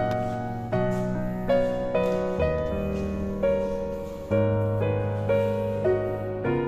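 Background piano music: slow notes struck about once every half second to a second, each left to ring and fade.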